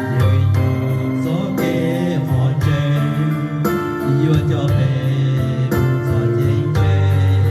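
Background music with sustained keyboard chords and a singing voice, in the style of gospel music.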